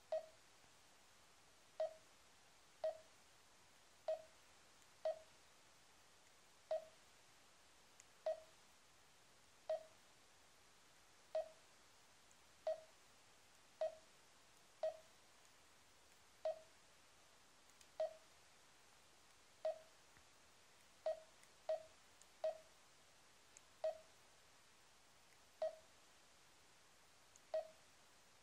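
Garmin dezl 760 LMT sat-nav giving its touchscreen key tone: a short single-pitch beep for each tap as the menus are stepped through. There are about twenty beeps, irregularly spaced about a second apart, each fading quickly.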